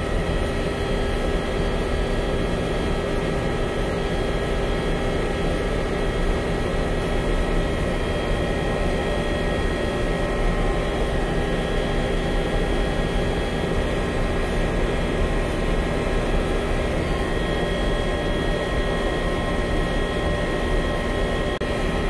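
Steady drone of running air-handling machinery, with several constant hum tones held at an even level.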